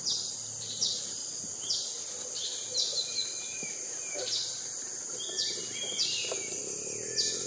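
Outdoor orchard ambience: a steady high-pitched insect drone, with a bird giving repeated short calls that drop in pitch, about one a second.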